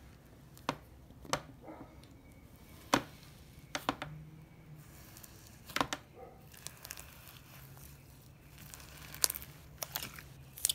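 Fingers squeezing and stretching sticky glue slime mixed with coloured sand, giving sharp wet pops and crackles at irregular intervals, about a dozen in all.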